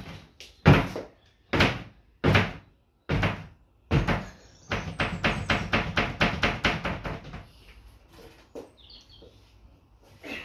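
Kitchen cupboards being smashed: five heavy bangs about a second apart, then a fast run of knocks at about six a second, then a few fainter knocks near the end.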